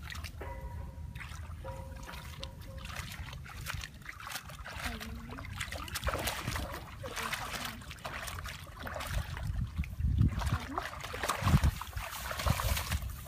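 Hands splashing and sloshing in a shallow, muddy trickle of water while groping for fish, with water trickling; the splashing gets busier and louder in the second half.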